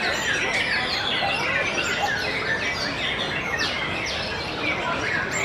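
White-rumped shamas (murai batu) singing in a contest chorus: a dense, unbroken tangle of overlapping whistles, trills and chirps from many caged birds at once, over a steady background hubbub.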